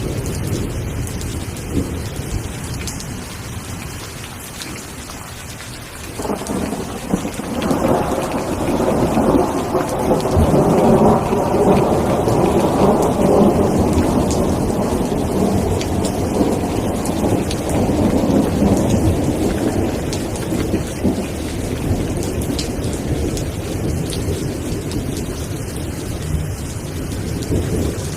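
Steady rain with a long roll of thunder. The thunder breaks in suddenly about six seconds in, builds for several seconds, then slowly rumbles away.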